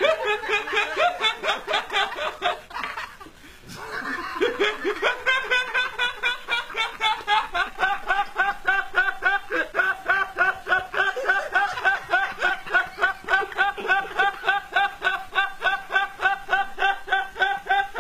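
A man laughing in a long, rhythmic run of 'hoo' sounds, about three or four a second. The laughing trails off briefly about three seconds in, then picks up again and runs on evenly.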